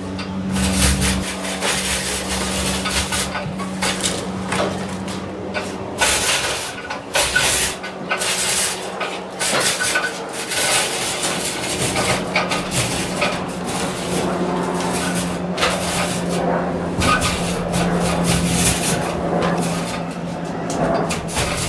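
Electric hoist motor humming steadily while lowering a heavy commercial water heater, with repeated clanks, knocks and scraping as the tank and rigging shift against metal and wood.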